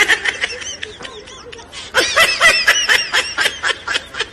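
Laughter: rapid strings of short, high-pitched 'ha' bursts, a second, louder run starting about two seconds in.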